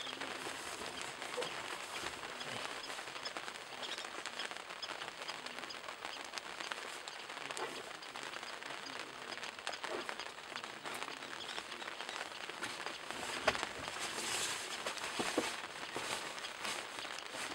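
African wild dogs feeding at an antelope carcass: a steady crackling of tearing and chewing, with short high chirps scattered through it. It grows a little louder near the end.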